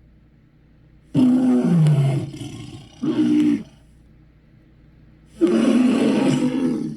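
A St. Bernard dog's harsh, roar-like vocalizations used as monster sound effects: a long call falling in pitch about a second in, a short one about three seconds in, and another long one near the end, with quiet pauses between.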